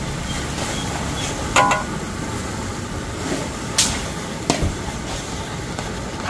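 A cooking utensil knocking and clinking against a pot as minced pork is stirred into curry broth, a handful of sharp strikes, the first about one and a half seconds in ringing briefly. A steady low rumble underneath.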